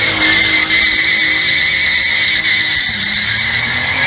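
Cadillac ATS sedan doing a burnout: the rear tyres spin and squeal steadily as a high screech, with the engine held at high revs underneath. The engine note dips about three seconds in.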